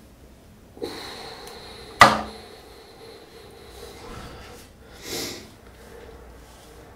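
Small handling noises of a pair of small scissors being worked at a heel blister in a small tiled bathroom: a brief rustle about a second in, a single sharp click about two seconds in, and a short breath through the nose about five seconds in.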